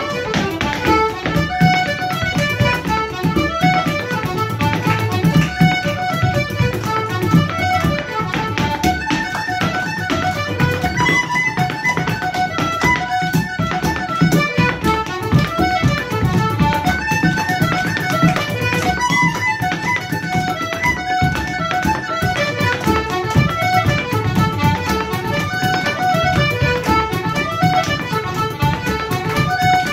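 A lively Irish traditional dance tune on button accordion and tin whistles, with a quick steady beat from a bodhrán and dance steps on a wooden floor.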